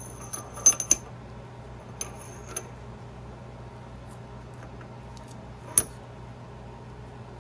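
Steel transmission gears and parts of a Ford Ranger M5R1 five-speed gearbox clinking as they are handled and settled on the shafts. There is a high metallic ring: a cluster of clinks about a second in, a couple more around two seconds, and one sharp clink near six seconds.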